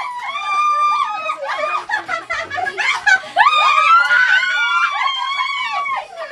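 Several women shrieking and squealing with laughter in long, high-pitched screams, in two bouts, the second starting about three seconds in.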